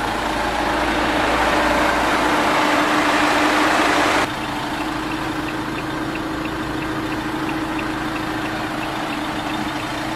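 Renault Master van's twin-turbo diesel engine idling with a steady hum. A louder rushing noise over it cuts off abruptly about four seconds in, after which a faint rapid ticking repeats about three times a second.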